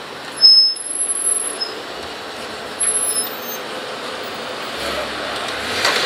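UPS package truck driving past at close range, with short high-pitched squeals about half a second in and again around three seconds.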